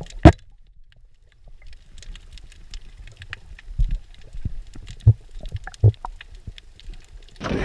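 Underwater sound during a freediving spearfishing dive: faint scattered clicks and crackle throughout, one sharp loud knock just after the start, and a few dull thumps later on.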